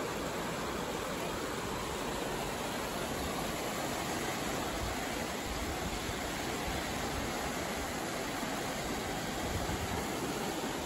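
Lake Huron waves washing onto a sandy beach: a steady, unbroken rush of surf.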